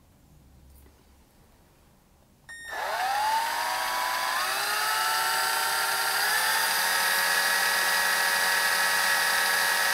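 Electric drill starting up about two and a half seconds in. Its motor whine rises quickly, steps up in speed twice, then runs steady as the drill spins the tricore and winds fine Ni80 nichrome wire around it to make an alien coil.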